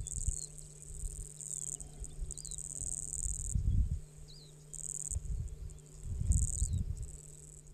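Insects trilling in high, buzzing spells that switch on and off every second or so, with a few short bird chirps and low rumbling surges underneath.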